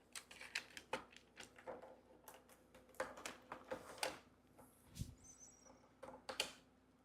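Plastic magnetic building tiles and toy pieces being handled, giving an irregular string of light clicks and taps as they are put together and set down.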